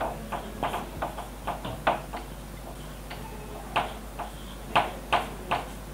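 Marker tips tapping and making short strokes on a whiteboard as figures are written: a scatter of quick, irregular ticks.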